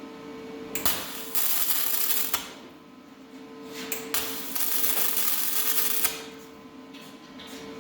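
Welder arc crackling in two long bursts of about one and a half and two seconds, laying weld on a steel patch panel in a car body, with a steady hum underneath.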